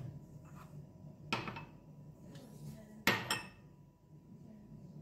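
Two clattering knocks of a plastic food processor bowl and parts being handled on a stone countertop, the second, about three seconds in, the louder.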